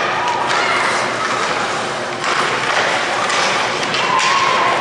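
Ice hockey play in an arena: skate blades scraping the ice and sticks striking the puck, with a few short sharp knocks and some brief shouts.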